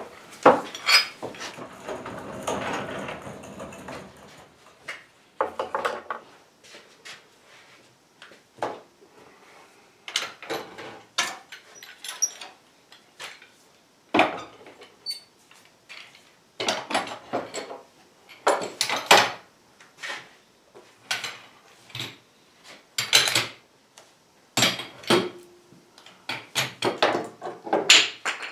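Metal bar clamps clanking and knocking against wooden table leaves as they are handled and set, in scattered single knocks and short clusters, with a few seconds of wood scraping at the start.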